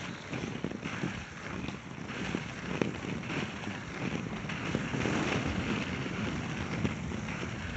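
Inline skate wheels rolling over asphalt, a steady rumble, with wind buffeting the microphone as the skater moves.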